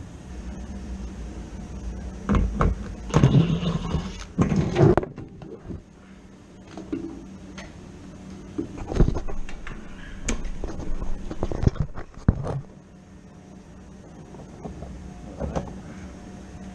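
Knocks and clatter of hands working on the inside of a gas boiler's cabinet, with several sharp bangs in two busy stretches, over a steady low hum.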